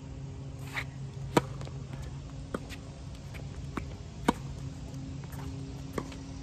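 Tennis rally: sharp racket-on-ball hits, the two loudest from the near player's groundstrokes about a second and a half in and again just past four seconds, with fainter hits and ball bounces from across the court in between. A low steady hum runs underneath.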